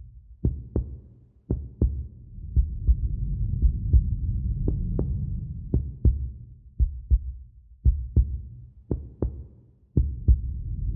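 Slow heartbeat, a double thump about once a second, over a low rumble that swells and then fades away just before the end.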